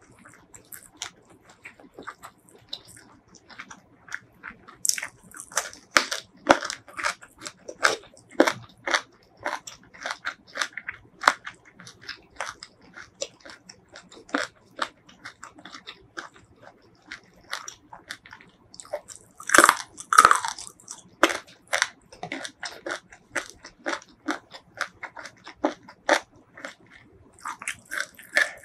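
Close-miked chewing and biting of food: a steady run of short, sharp mouth clicks and crunches, loudest in a burst about twenty seconds in.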